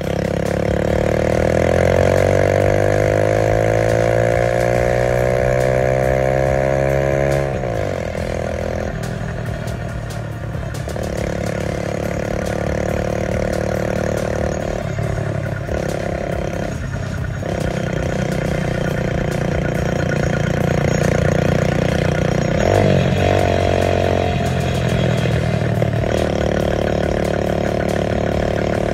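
A vehicle engine running under load as it is ridden. Its pitch rises steadily for about seven seconds, then drops sharply, and it runs fairly evenly after that, with a few short dips and another brief change in pitch late on.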